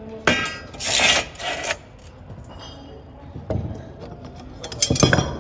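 Metal pipe pieces being handled and knocked together: a ringing clank just after the start, then scraping and rubbing, another knock partway through and a louder clatter near the end.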